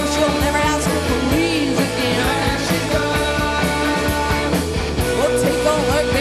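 Rock band playing live, guitars to the fore over a steady beat, with a woman singing.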